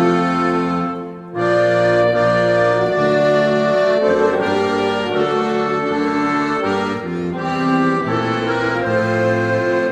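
Hymn played by accordion with clarinets, trumpets, alto saxophones, trombones and euphonium, in held chords that change about once a second. There is a brief break between phrases about a second in.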